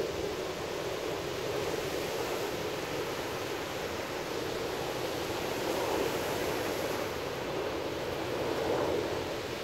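Small surf breaking and washing up on a sandy beach: a steady rushing hiss that swells a little about six and again about nine seconds in.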